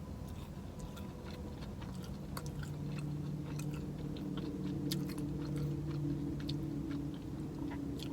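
Close-up chewing of a boneless chicken wing, with small wet mouth clicks scattered throughout. A low steady hum comes in about two seconds in.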